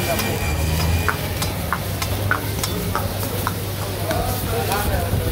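Beef karahi sizzling in a wok over charcoal while a metal ladle clinks and scrapes against the pan as the meat is stirred, giving sharp irregular ticks. A low rumble of flames flaring from the wok fades about a second in.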